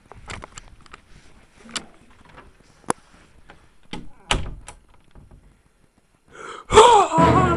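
A door being handled: its brass lever handle and latch clicking, with a string of knocks and a louder thud a little past halfway. Loud music comes in suddenly near the end.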